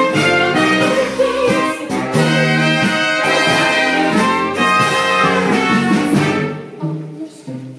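Live band playing a jazzy, brass-led instrumental with drum hits. About six and a half seconds in it drops to a much quieter, sparser passage.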